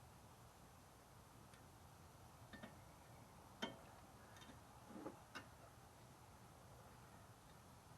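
Near silence broken by a few faint clicks and taps, the loudest about halfway through, as brake pads and their clip hardware are handled and fitted.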